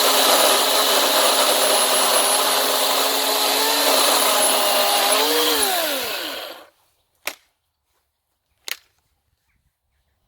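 Ryobi OCS1830 18V brushless cordless chainsaw running at full speed through a thick log, its chain and motor loud and steady. About six seconds in the motor whine falls away as the saw spins down and stops. Two sharp knocks follow, about a second and a half apart.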